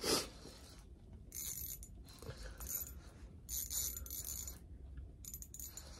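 Spinning reel clicking and whirring in four or five short bursts as a large fish is played on the line, with a brief knock at the very start.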